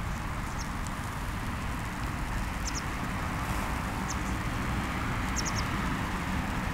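Steady hum of road traffic, with a few faint, short high chirps now and then.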